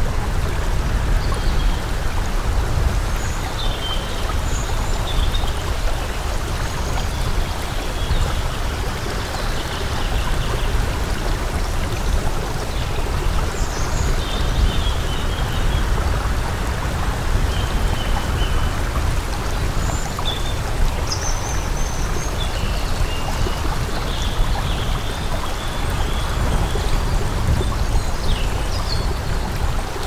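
Flowing stream water, a steady rush with a deep low rumble, with short high chirps scattered through it.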